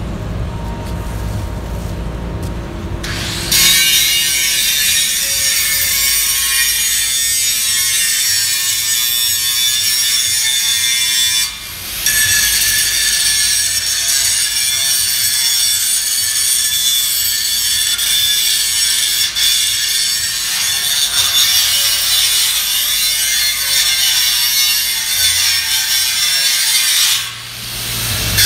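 Angle grinder grinding a steel rectangular tube: a loud, steady, hissing grind that starts about three and a half seconds in. It drops out briefly near the middle, then again shortly before the end, before biting in once more.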